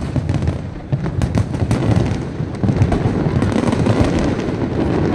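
Aerial fireworks display, shells bursting in quick succession: a dense, continuous rumble of booms with many sharp cracks and pops on top.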